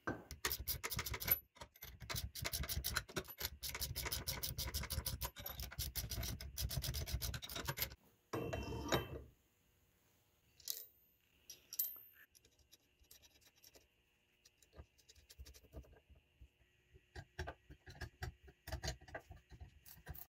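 Fast, rapid scraping and rubbing strokes, dense for about eight seconds, then a short louder burst, then scattered scratches and light clicks.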